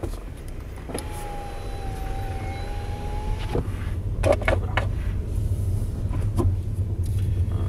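A small electric motor whines at a steady pitch for about two and a half seconds, over the low hum of the Skoda Superb's 1.5 TSI four-cylinder petrol engine as the car rolls slowly; a few sharp clicks follow.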